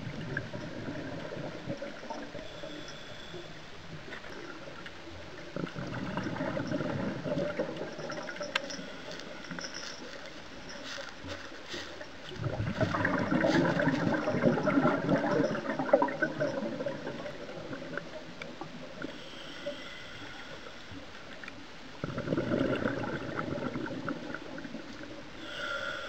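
Scuba diver's exhaled breath bubbling out of the regulator, heard underwater: three long gurgling swells several seconds apart, with a quieter hiss between them.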